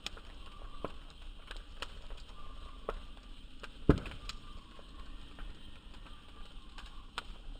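Bonfire crackling: irregular sharp pops and snaps over a steady background hiss, with the loudest pop about four seconds in.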